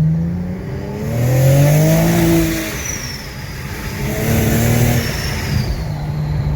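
Holden Commodore SV6's 3.6-litre V6 engine revving up and back down about three times, then running steadily.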